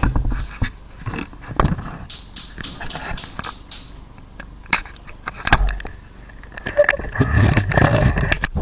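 Clattering and knocking of small household objects, with a quick run of short scraping strokes early on and a louder, noisier stretch of clatter near the end.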